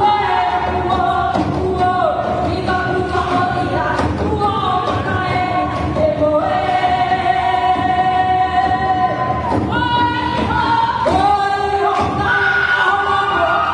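Music for a hula: several voices sing a song together in long held notes that slide between pitches.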